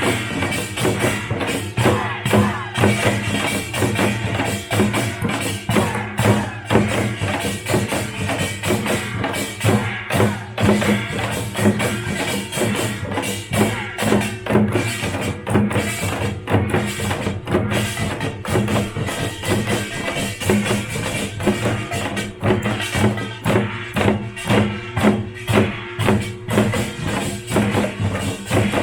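Korean pungmul folk percussion band playing live: dense, fast drumming with clanging small metal gongs, a steady rhythm throughout.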